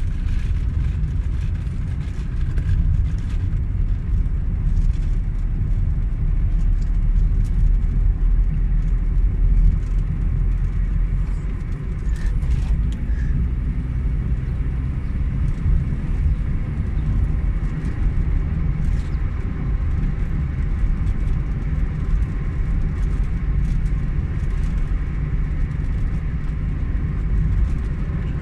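Car driving along a country road: a steady low rumble of engine and tyres on the tarmac, the deepest part of it heavier for the first twelve seconds or so and then easing.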